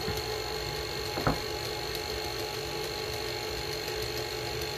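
Tilt-head stand mixer motor running with a steady hum as its beater mixes cake batter, with one short knock about a second in.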